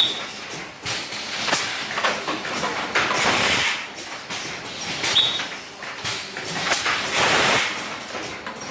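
Pneumatic machine cycling, with repeated bursts of compressed-air hiss and a short high beep recurring about every four and a half seconds.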